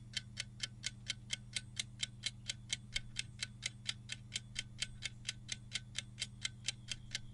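Clock-ticking sound effect for a countdown timer, even ticks about four a second, over a faint steady low hum.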